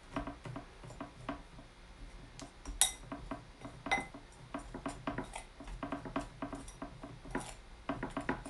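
A utensil knocking and scraping in a mixing bowl as mugwort rice-flour dough is stirred: a quick run of small knocks with a couple of louder ringing clinks.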